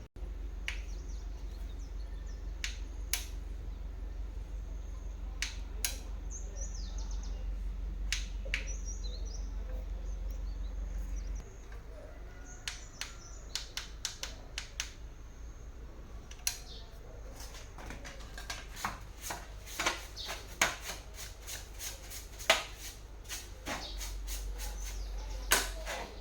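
Scattered sharp clicks and light taps over a low steady hum, coming thicker in the second half, with a few brief high chirps near the start.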